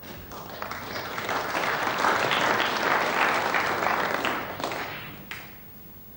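Audience applauding, swelling over the first two seconds and then dying away about five seconds in.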